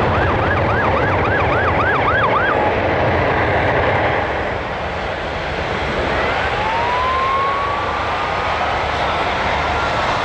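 KAI T-50B Golden Eagle jets, each with a single General Electric F404 turbofan, making a steady jet roar during an aerobatic display. For the first two and a half seconds a siren-like whoop rises and falls about three times a second over the jet noise. About six seconds in, a whine rises and then holds steady.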